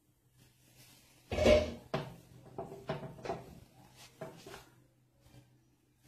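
A loud knock of kitchenware about a second and a half in, then a spatula scraping and tapping around a non-stick frying pan in several quick strokes as a thick, reduced milk mixture is stirred.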